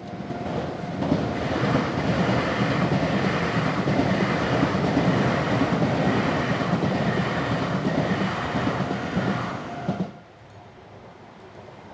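Nankai Takashinohama Line electric train passing over a level crossing, its wheels rumbling and clattering over the rails. The sound cuts off suddenly about ten seconds in.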